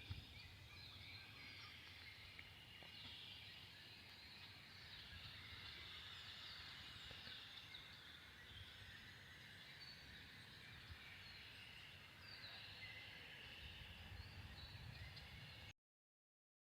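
Faint chorus of many spring marsh birds calling and chirping over one another, steady throughout, cutting off abruptly near the end.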